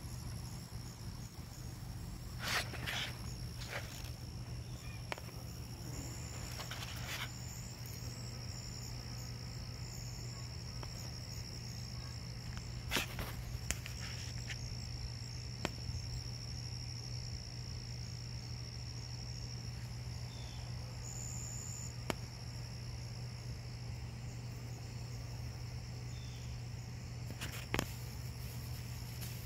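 Steady low buzzing of bumblebees at garlic chive flowers, under a continuous high-pitched insect whine, with a few sharp clicks scattered through.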